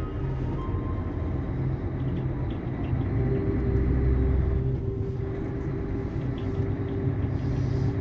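Heavy truck engine running as the truck rolls slowly, a steady low rumble that swells a little about four seconds in.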